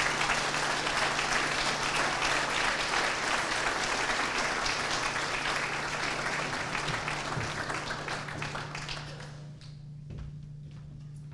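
Audience applauding, dying away about nine seconds in, over a steady low hum.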